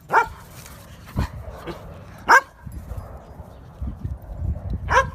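A dog barking three times, short single barks about two and a half seconds apart, with a few low thumps between.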